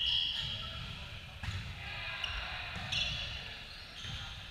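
Volleyball play in an echoing gym: sharp thuds of the ball about every second and a half, with short high squeaks and faint distant voices.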